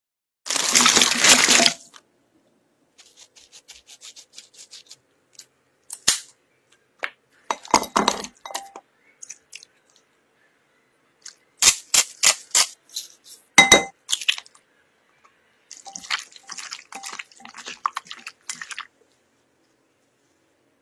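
A loud burst of noise about a second long at the start, then scattered clicks, taps and small wet splats as sauces and seasonings are added to raw chicken wings in a glass bowl and gloved hands work the wings.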